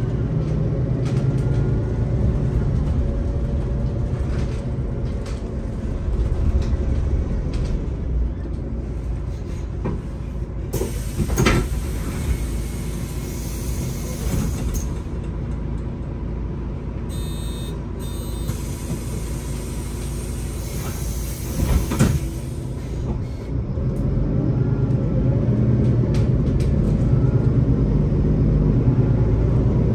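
MAN Lion's City A40 GL articulated city bus under way, heard from inside the passenger cabin: steady low rumble of its engine and driveline with road noise and a few short knocks and rattles. The rumble eases off in the middle, then grows louder again about three-quarters of the way through as the engine pulls harder.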